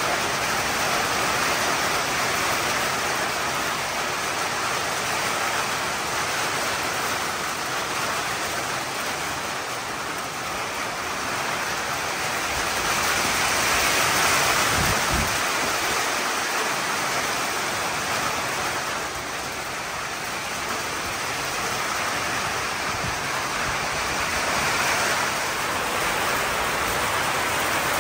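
Heavy rain pouring steadily, with the noise swelling and easing as it comes down harder in gusts; a brief low thud about halfway through.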